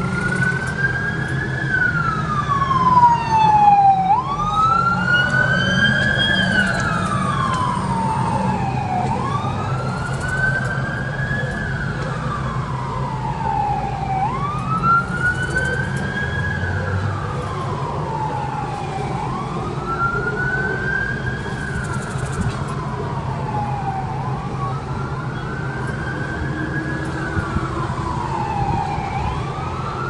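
Emergency vehicle siren in a wail pattern: each cycle rises quickly, then slides slowly down, repeating about every five seconds over a steady low rumble.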